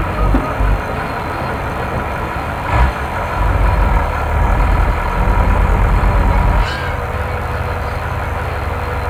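Heavy diesel engine of a Kato mobile crane running with a steady low rumble. It grows louder for a few seconds in the middle, and a short knock comes about three seconds in.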